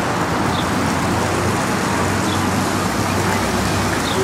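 Steady road traffic noise, an even rumble that does not rise or fall.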